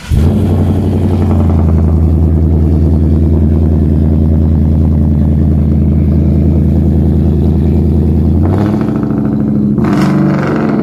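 Coyote-swapped Ford F100's 5.0 DOHC V8 firing up suddenly and settling into a loud, steady idle. The idle note shifts about eight and a half seconds in, and there is a brief rise in engine sound near the end.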